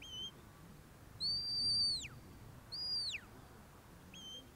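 A sheepdog handler's shepherd's whistle giving whistled commands to a working border collie. There are four notes: a short, lower note at the start, a long high note that holds and then falls away at its end, a shorter high note that drops steeply, and another short, lower note near the end.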